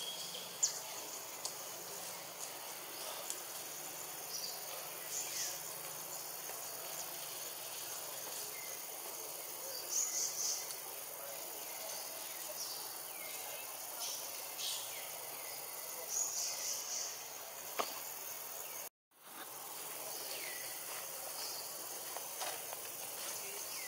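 Forest ambience: a steady insect drone with scattered short, high chirps and calls. The sound cuts out for a moment about nineteen seconds in.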